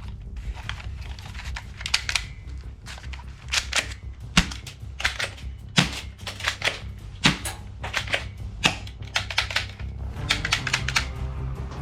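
Irregular sharp plastic clicks and snaps from toy guns being handled and worked, coming singly and in quick clusters, with a few louder snaps midway, over steady background music.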